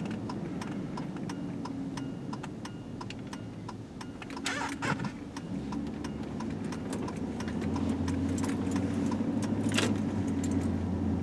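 Car turn signal ticking steadily, about three clicks a second, over the engine and road noise of a car making a right turn. The engine gets louder about seven seconds in as the car speeds up after the turn.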